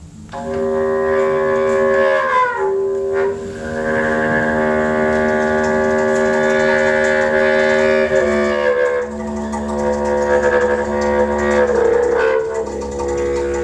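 Conch shell horn blown in long held notes, entering abruptly just after the start; the tone breaks and dips in pitch a few times, and a bass clarinet plays sustained notes with it.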